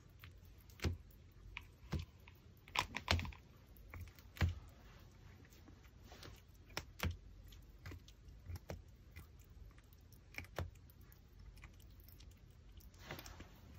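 Pomeranian chewing a raw pork backbone: irregular sharp cracks and clicks of teeth on bone, with a cluster of louder crunches a few seconds in.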